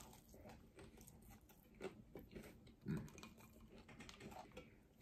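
A person quietly chewing and biting Popeyes spicy fried chicken, with a couple of louder bites about two and three seconds in.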